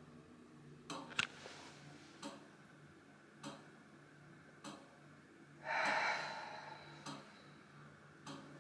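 Water dripping, a sharp drop landing about every 1.2 seconds, from a tap that is either leaking or not turned fully off. About six seconds in there is a brief, louder breath-like rush of noise.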